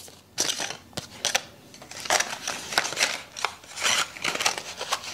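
Sunglasses packaging being handled by hand: irregular bursts of rustling, crinkling and scraping.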